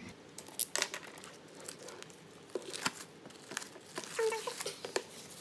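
Plastic shrink wrap being torn and peeled off a K-pop album, with irregular crinkling crackles and rustles.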